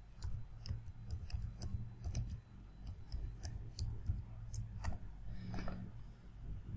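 Computer keyboard keys clicking in an irregular run as a password is typed, over a low steady hum.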